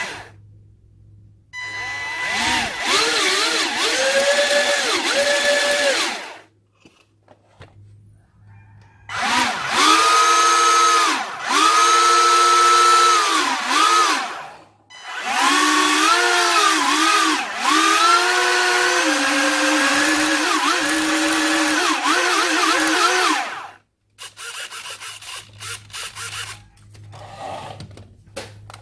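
Four small brushed 180-size electric motors driving a boat's propeller shaft, run out of water from the radio transmitter in three bursts of a few seconds each. Their whine rises and dips as the throttle is worked.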